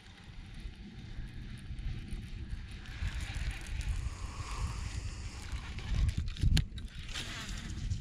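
Wind buffeting the microphone in an uneven low rumble, with a couple of sharp knocks from handling the rod and reel near the end.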